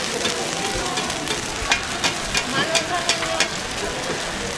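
Pancakes frying in oil on a flat griddle, a steady sizzle. About halfway through comes a run of half a dozen sharp clicks.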